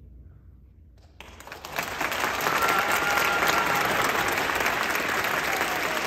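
Audience applauding, breaking out suddenly about a second in after a brief hush, then holding steady.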